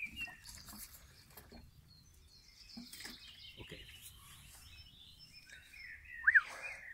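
Birds chirping in short calls, with a few faint knocks. The loudest sound is one sharp, brief chirp about six seconds in.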